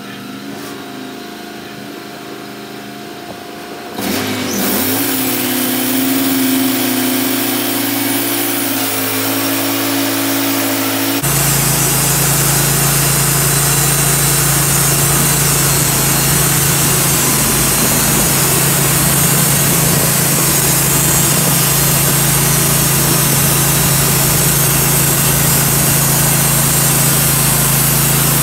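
Wood-Mizer portable bandsaw mill's gasoline engine idling, then revving up about four seconds in. About seven seconds later the sound jumps suddenly to a louder, steady hum with a hiss as the band blade is engaged and the saw head runs up to the walnut log.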